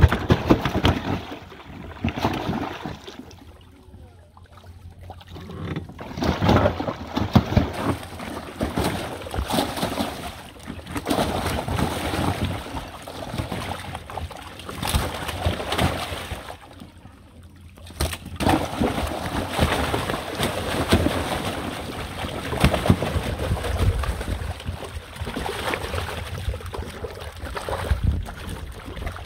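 Large fish splashing and thrashing in a shallow, tarp-lined tank of water. There is a heavy splash at the start as a fish is dropped in, then irregular bursts of splashing with brief lulls.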